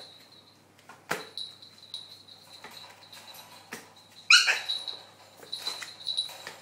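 Toy poodle puppy giving one short, high-pitched yip about four seconds in, with a sharp knock about a second in and light clicks around it.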